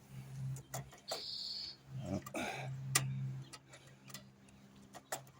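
Irregular light metallic clicks and ticks from working the rear drum brake adjuster nut of a Yamaha TW200, loosening it off because the brake free play is too much.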